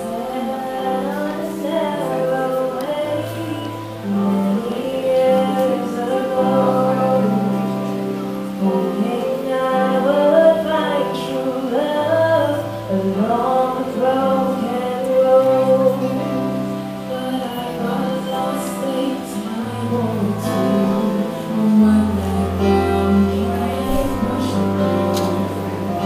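Women singing a slow ballad over a backing track with long held bass notes.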